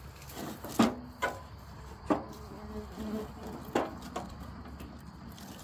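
Old rotten wooden deck boards knocking together as they are shifted and stacked by hand in a gondola car, four separate hard knocks.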